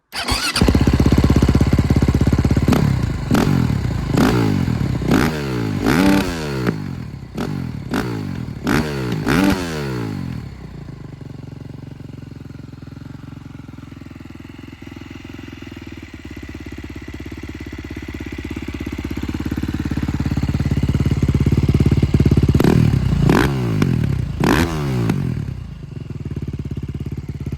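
KTM 450 SX-F motocross bike's single-cylinder four-stroke engine through a loud Akrapovic exhaust, blipped hard again and again for the first ten seconds or so, then settling to a steady idle. The idle grows louder, and a few more sharp revs come near the end before it idles again.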